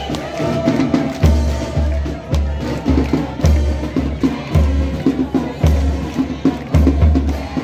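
Music with a steady, deep drum beat, about two beats a second, and lighter percussion over it.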